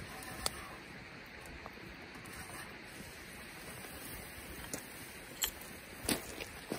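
Wood fire burning in a metal fire stand, crackling, with a few sharp pops, the loudest about six seconds in.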